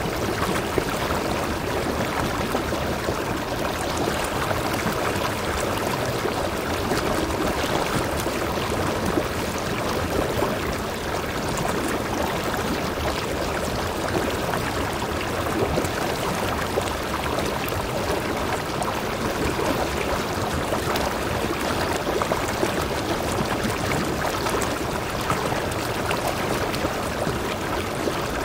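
Mountain stream's small cascade pouring between boulders into a rock pool: a steady, unbroken rush of water.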